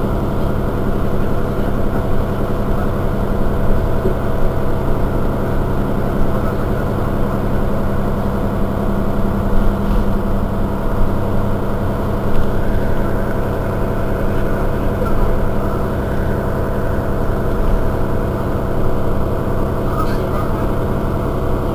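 Mercedes-Benz Citaro Facelift city bus idling at a standstill: a steady engine hum with even, unchanging low tones.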